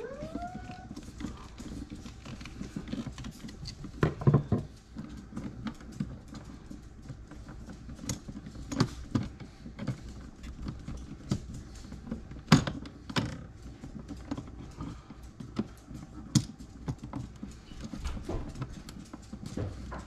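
Irregular clicks and knocks, the loudest about four and twelve and a half seconds in, over a low steady hum, with a short rising whine at the very start.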